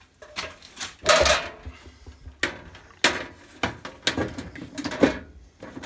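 Sheet-steel cover of an electrical breaker panel being lifted and fitted against the panel box: a series of metallic clanks, knocks and scrapes, loudest about a second in.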